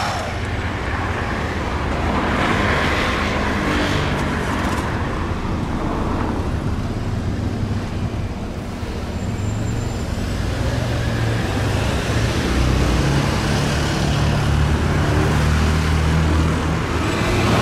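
A de Havilland Canada DHC-6 Twin Otter's two turboprop engines running at taxi power, a steady propeller and engine drone with a low hum that grows stronger in the second half as the aircraft turns.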